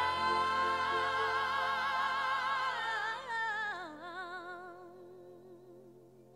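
Music: a solo singing voice holds one long note with vibrato, then steps down to a lower note that fades away.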